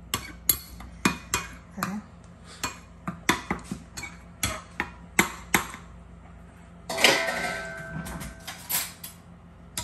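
Metal spoon clinking against a ceramic bowl while stirring a thick sauce, about two or three clinks a second, stopping after about five seconds. About seven seconds in comes a longer scraping rattle, followed by a few more knocks.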